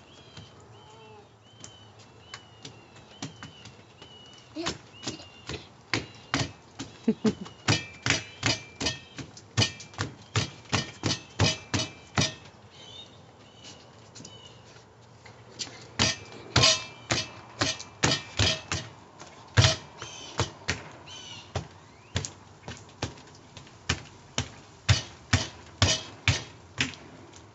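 A run of sharp knocks or slaps, about two to three a second, coming in several bursts with short pauses between. A bird chirps repeatedly in the first few seconds.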